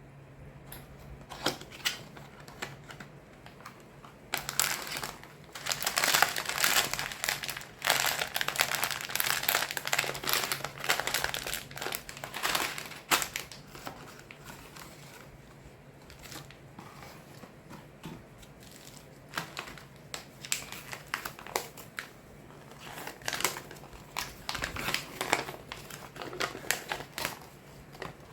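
Plastic packaging crinkling and rustling as a micro building-block set is unboxed. It comes in irregular bursts, most continuous from about four seconds to thirteen seconds in, then in scattered handling noises.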